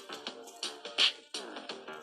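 Background music with a steady beat: sharp percussive hits about twice a second over a melodic line.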